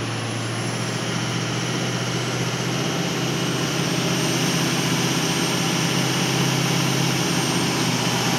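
Steady drone of a vehicle driving with a window down: engine hum under a rush of road and wind noise, growing slightly louder a few seconds in.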